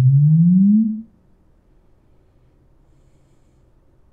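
Sunfire SDS-12 dual 12-inch subwoofer playing a room-measurement sine sweep: a deep pure tone gliding steadily upward in pitch. It cuts off about a second in, leaving only faint room noise.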